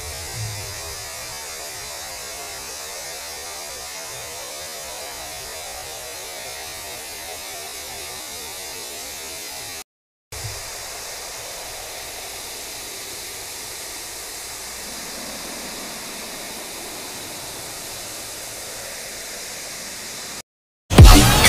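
VHS tape static sound effect: a steady hiss of noise with a low hum under it. It cuts out completely for a moment about ten seconds in and starts again with a little thump of hum. Near the end it cuts off, and loud electronic music starts.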